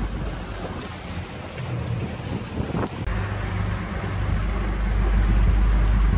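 Motorboat running underway: a steady low engine hum mixed with wind buffeting the microphone and water rushing past the hull, growing louder in the second half.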